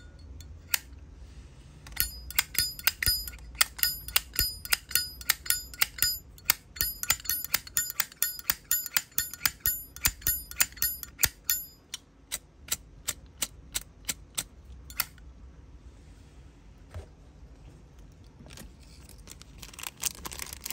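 Zippo lighter's brass lid clinking open and snapping shut over and over, each click ringing. They come about two to three a second, then thin out and stop about three quarters of the way through.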